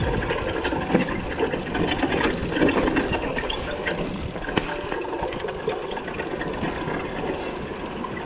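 Mountain bike riding down a damp dirt trail: tyres rolling over dirt and roots, with the bike rattling and knocking over bumps.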